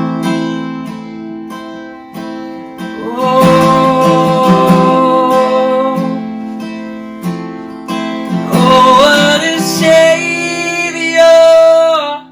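Worship music: acoustic guitar strumming chords, with long held melody notes over it from about three seconds in. The music breaks off just before the end.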